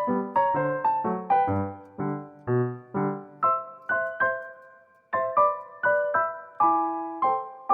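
Background piano music: a light melody of single struck notes, about three a second, each fading away, with a brief pause about five seconds in before it picks up again.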